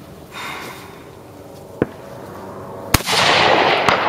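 A precision rifle fires once about three seconds in: a sharp crack followed by about a second of loud noise. A single sharp click comes about a second earlier.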